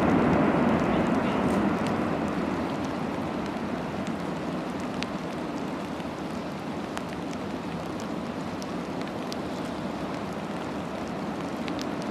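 The rumble of calving glacier ice and the water it churned up fades over the first few seconds. It settles into a steady wash of water noise with scattered faint ticks.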